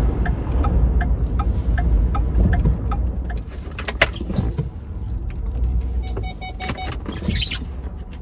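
Pickup truck cabin noise: a low engine and road rumble that eases off as the truck slows, with a run of light regular ticks early on. There is a brief beeping chime about six seconds in, and a click near the end as the seatbelt is unbuckled.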